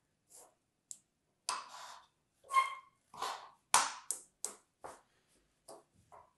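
Hollow plastic sand molds being handled and set down on a cloth-covered surface: a quick string of light plastic knocks and clatters, the loudest in the middle, one ringing briefly.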